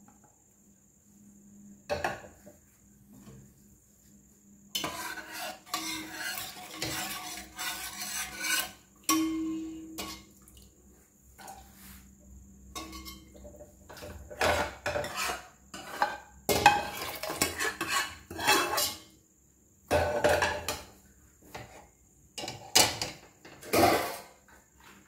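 A metal spoon scraping and clinking against a steel pressure cooker and pan as fried masala is scraped in and stirred into boiled black chickpeas. It comes in repeated bouts of scraping with sharp knocks, starting about five seconds in.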